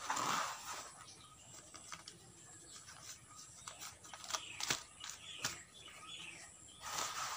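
Hands scooping and pressing dry, crumbly potting soil: a gritty scraping rustle at the start as soil is taken from the basin, scattered clicks and rustles as it is firmed into a plastic nursery bag, and another gritty scrape near the end.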